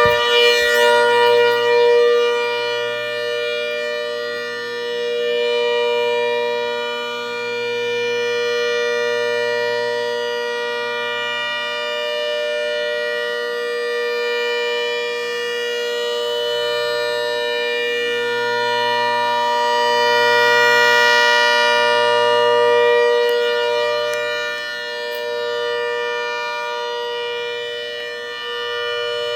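Mini Hurricane 130 siren, run without its blower, sounding a steady multi-tone chord at full speed right after winding up. Its loudness swells and fades slowly over several seconds.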